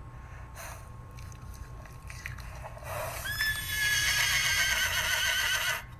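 A horse neighing: one long, wavering whinny that begins about halfway through and lasts over two seconds, with a couple of faint short noises before it.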